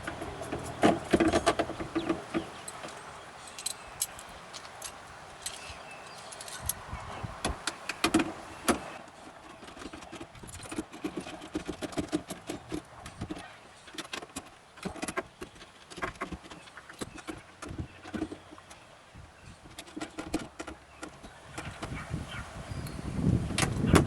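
Irregular metal clicks, clinks and knocks as a car door latch and its bolts are fitted and fastened by hand, with a few louder thumps.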